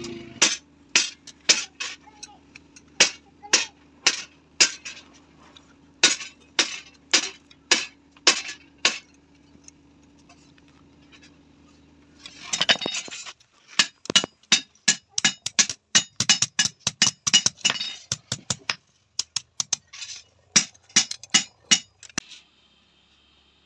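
Hand hammer striking hot iron rods on a steel anvil: sharp metallic blows about two a second, a pause of a few seconds, then a faster run of blows that stops shortly before the end.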